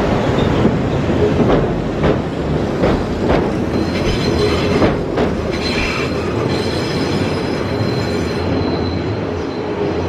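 Eizan Electric Railway 800 series electric train running out of the station, with several clicks of the wheels over rail joints, then a thin high wheel squeal from about four seconds in.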